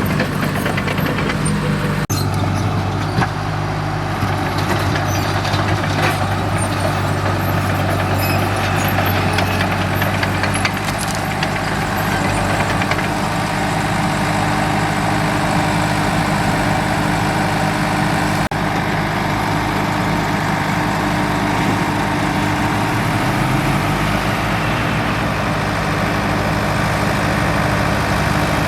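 Komatsu D37EX bulldozer's diesel engine running steadily under work, with some mechanical clatter over it. The engine pitch shifts a little partway through and rises briefly near the end.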